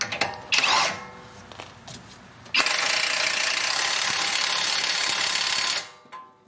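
Power impact wrench running a nut down: a short burst, then a steady run of about three seconds that starts and stops abruptly.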